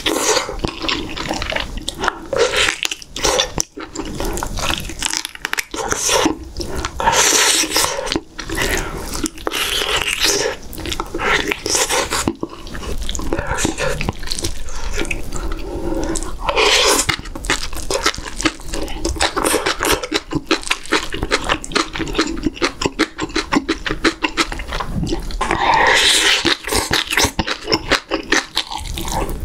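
Close-miked eating: wet chewing and lip-smacking as meat is gnawed off a braised beef short rib bone and side dishes are eaten. Several louder wet bursts of slurping come through, roughly ten seconds apart.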